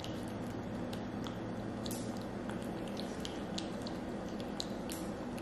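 Yorkshire terrier puppy eating from a stainless steel bowl: soft chewing with irregular small clicks against the metal, a few a second, over a steady low background hum.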